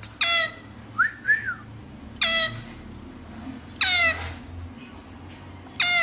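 Indian ringneck parakeet calling: four loud, short squawks, each sliding down in pitch, spaced about every one and a half to two seconds, with a softer two-note chirp about a second in.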